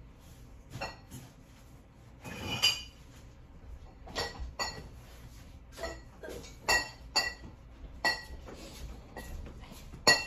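Glass bottles clinking against each other as they are handled and set down: a string of sharp clinks with a brief ringing after each, spread over several seconds, with a longer rustling clatter about two and a half seconds in.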